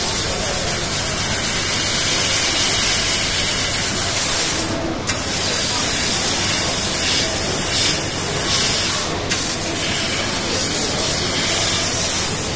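750 W fiber laser cutting machine cutting sheet metal: a steady loud hiss of assist gas jetting from the cutting nozzle. The hiss breaks off briefly twice, about five and nine seconds in, between cuts.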